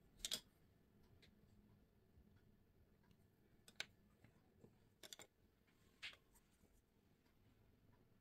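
Near silence broken by a handful of short clicks and taps as small cake-decorating tools, a metal piping tip and a plastic edge tool, are handled against a fondant cookie and the tabletop.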